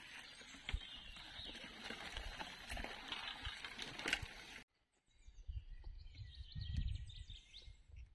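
Mountain bike tyres rolling over a rocky dirt trail, with many sharp clicks and rattles from the bikes. After a sudden cut about halfway through, birds chirp over a low rumble.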